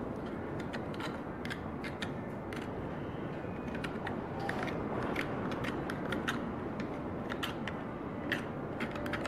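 Knife blade scraping softened, gelatinous tissue off a boiled deer antler skull plate: irregular short scrapes and clicks of metal on bone, over a steady low background noise.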